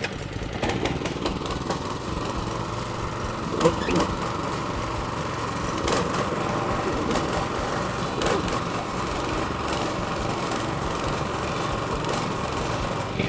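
Petrol cylinder lawn mower running steadily with a verticut cassette fitted, its vertical blades slicing into the turf and pulling out grass.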